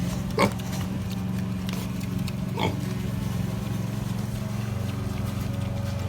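Two short piglet squeals, about half a second and two and a half seconds in, over the steady drone of a small engine from brush-clearing machinery running nearby.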